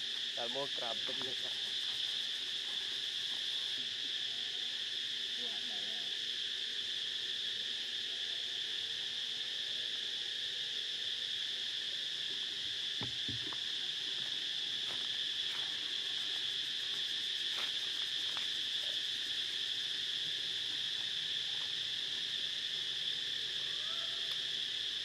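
Steady, high-pitched drone of a chorus of insects in the surrounding vegetation, unbroken and even in level, with a few faint short calls about a second in.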